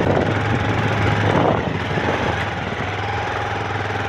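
A 220 cc motorcycle engine running at a steady speed, with a noisy rush of road and wind over it; it drops slightly in level about a second and a half in.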